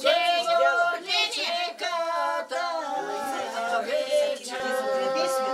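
Women singing an unaccompanied Bulgarian folk song together, with long held notes.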